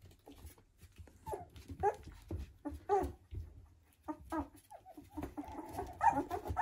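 Very young Border Collie puppies making a string of short, high squeaks and whines while they play-fight, with faint scuffling between the calls. The calls come more densely near the end.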